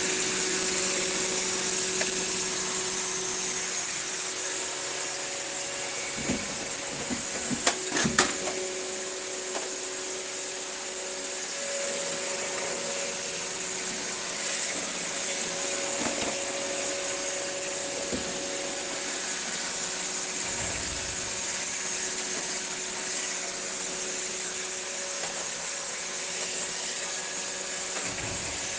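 Steady white-noise hiss with a faint low hum running under it, and a few sharp clicks about six to eight seconds in.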